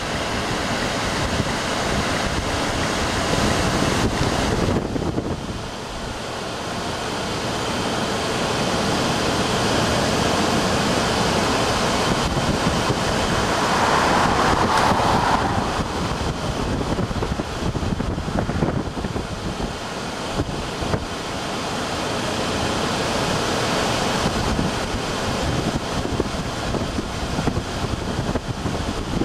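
Wind rushing over the microphone, mixed with road noise from a slowly moving car. It swells and eases over several seconds, dipping about five seconds in and peaking about halfway through.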